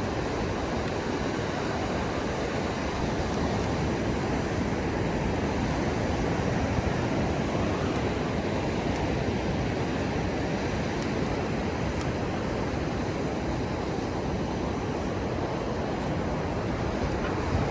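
Steady rush of ocean surf and wind, an even wash of noise with no distinct events.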